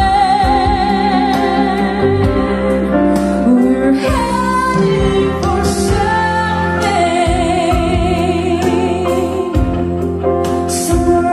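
A song with a voice singing a slow melody with vibrato over sustained bass notes, played back through a pair of KEF Reference floorstanding loudspeakers.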